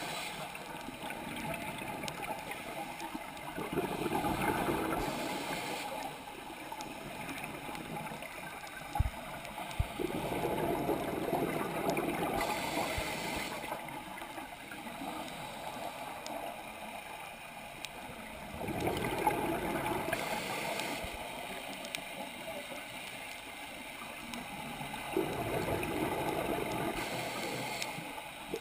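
Scuba diver's exhaled bubbles from the regulator gurgling underwater in bursts every six to eight seconds, with a quieter hiss between breaths. Two sharp clicks about nine seconds in.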